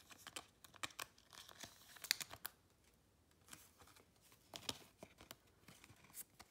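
A thin plastic penny sleeve crinkling and rustling as a trading card is handled and slid into it, in short scattered rustles and soft clicks.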